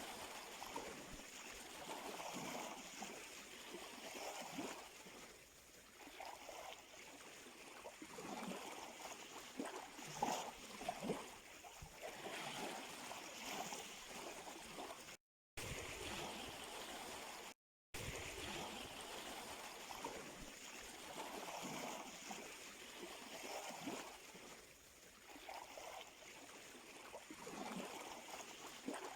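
Sea surf: small waves washing and lapping at the shore with gurgling water, rising and falling. The sound cuts out for a moment twice about halfway through.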